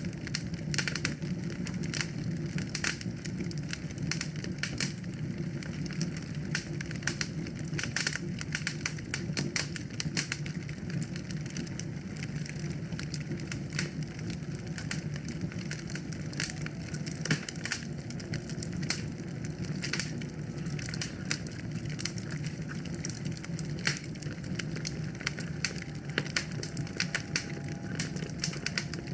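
Wood fire in a fireplace crackling: frequent, irregular sharp pops and snaps over a steady low rumble of the burning fire.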